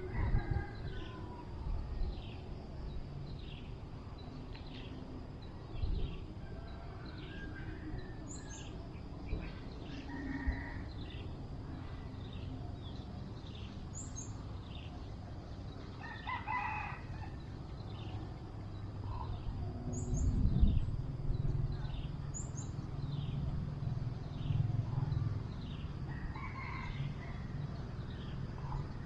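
A rooster crows once near the middle, over short high chirps that repeat about once a second throughout. A dull low thump comes about two-thirds of the way through and is the loudest moment.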